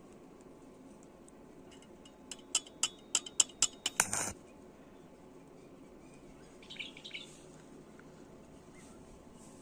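A quick series of about eight sharp clinking taps over two seconds, the last one ringing briefly. A short, faint rattle follows about three seconds later.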